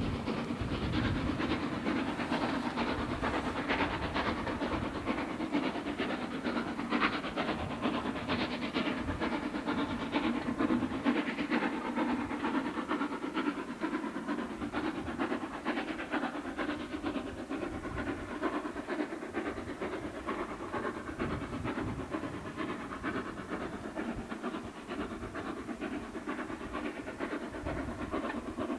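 Steam train running away into the distance, the locomotive's steam and the wheels on the track slowly fading.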